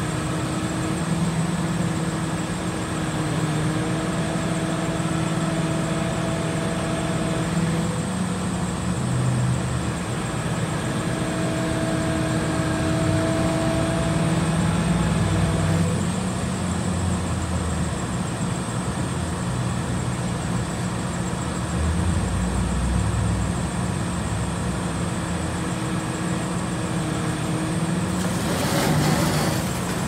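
Crane's diesel engine running steadily under load while hoisting a chiller, a low hum with a faint whine that comes and goes. A brief hiss about two seconds before the end.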